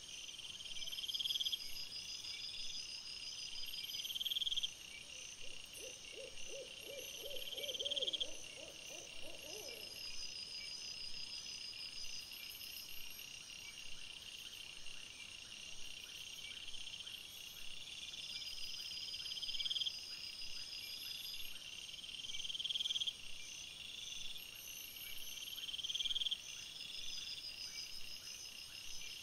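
Night insects trilling: high-pitched phrases repeating every couple of seconds over a steady high hum. From about five to ten seconds in, a short run of lower, rapid pulses joins them.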